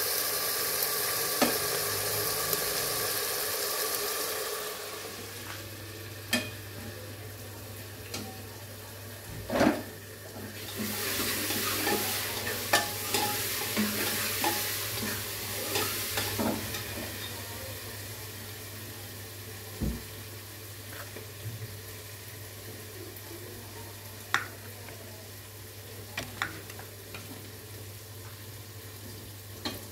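Minced meat sizzling as it fries in an aluminium pressure cooker, with scattered clicks and knocks. The sizzle fades after about four seconds, leaving a low steady hum, and comes back briefly near the middle.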